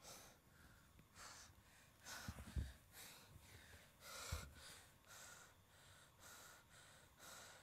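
A man's faint, heavy, quick breaths and gasps, about two a second, as he comes out of a nightmare. Two dull thumps come near the middle.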